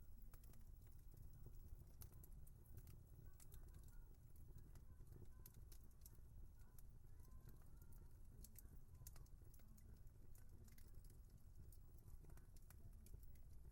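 Wood fire crackling faintly, with many small irregular snaps and pops over a low steady rumble.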